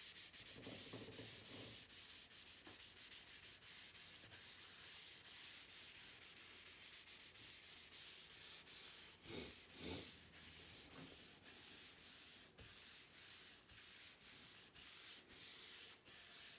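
A rag rubbing mineral oil into a hardwood cutting board in quick repeated strokes, a faint rhythmic swishing, with a couple of brief low sounds about a second in and near the middle.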